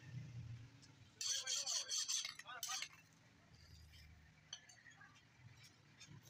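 Light metallic clinks and scraping of blacksmith's tongs against a freshly quenched axe head on a steel anvil. A denser stretch of clatter runs from about one second in to three seconds in, followed by a few single clicks.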